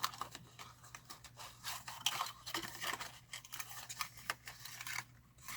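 Faint, irregular clicks and scratches of a small cosmetics box and its product being handled, over a steady low room hum.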